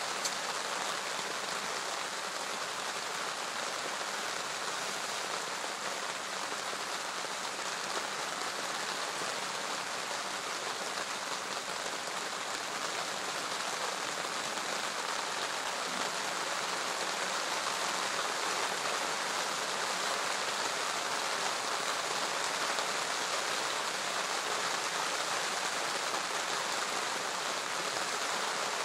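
Steady rain falling, an even hiss that grows slightly louder in the second half.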